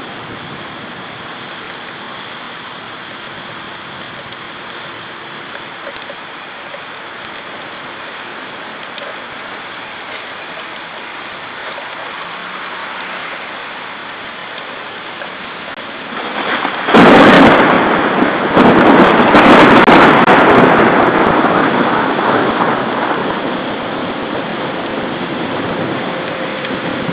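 Steady rain hiss, then close thunder: a sudden loud crack about two-thirds of the way through, a second crack a couple of seconds later, and a rumble that fades over several seconds.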